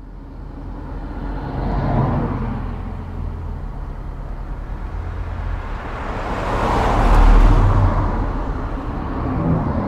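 Road traffic, with vehicles passing close by: an engine rumble that swells about two seconds in and again, louder, about seven seconds in.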